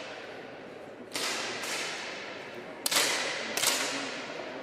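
10m air pistols fired by several shooters on a range: about six sharp cracks, some of them in close pairs, each with a long echoing tail.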